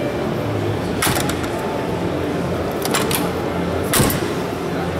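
Busy exhibition-hall background: a steady din of distant voices and hum, with sharp clicks or knocks about a second in, near three seconds, and a louder one at four seconds.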